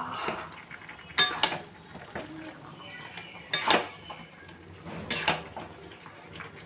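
Metal spatula stirring chicken pieces in masala around a metal pan, scraping along the pan with a few sharp clanks against its side.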